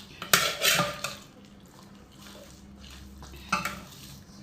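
A plate and eating utensil clattering and scraping about half a second in, then a quieter stretch with a single sharp clink near the end.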